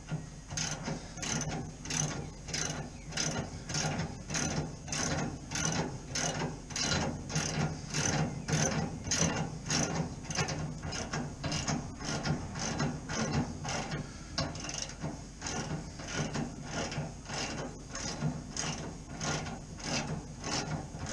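Ratchet wrench with a 24 mm socket clicking in steady, even strokes, about two a second, as a bolt is wound out by hand.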